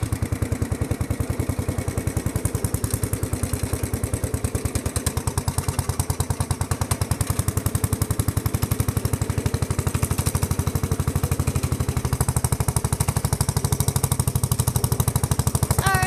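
Massey Ferguson riding lawn tractor's engine running steadily as the tractor is driven, a fast, even popping of firing strokes through its homemade 'redneck' exhaust pipe.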